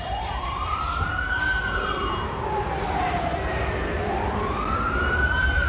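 Emergency vehicle siren wailing: one slow rise and fall, then a second rise that starts to fall near the end, over a low rumble of street noise.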